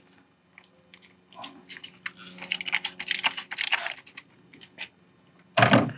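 Ratchet wrench on a 32 mm socket clicking in quick runs as it unscrews the plastic oil filter housing cap, with a short louder sound near the end.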